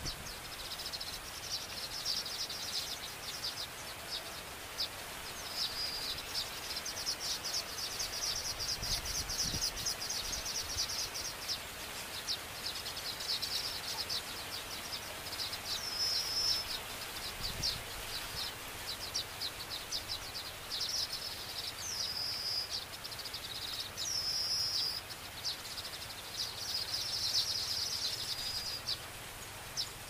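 Baya weavers chattering at their nests: runs of rapid dry ticking broken by short high whistled notes every few seconds.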